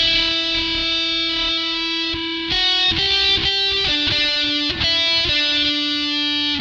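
Rock music track: an electric guitar, a Tokai Love Rock LS85, plays held chords that change every second or two.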